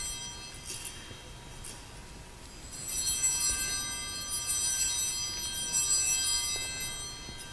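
Altar bells (Sanctus bells) rung at the elevation of the chalice after the consecration. Two brief rings in the first two seconds, then a longer stretch of shaken ringing from about three seconds in that fades shortly before the end.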